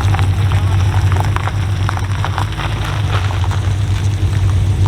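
Car engine running at low speed with a steady low rumble, with scattered crackles and ticks over it.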